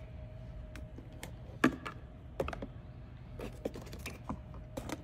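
Scattered light clicks and knocks of plastic accessories and chargers being handled and lifted out of the foam cut-outs of a hard drone case. The sharpest knock comes a little over a second and a half in.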